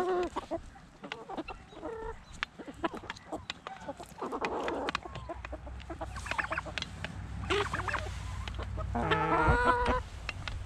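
Chickens clucking while feeding at close range, with frequent sharp clicks of beaks pecking at a food bowl. A longer, drawn-out hen call stands out near the end.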